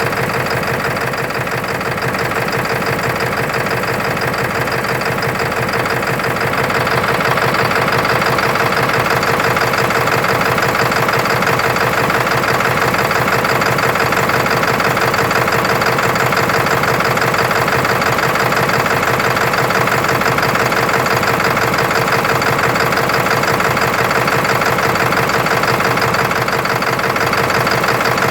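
Ford 7.3L Power Stroke V8 turbo-diesel idling roughly, heard from the open engine bay, with a steady rapid clatter; it grows a little louder about seven seconds in. The rough idle is the fault being shown.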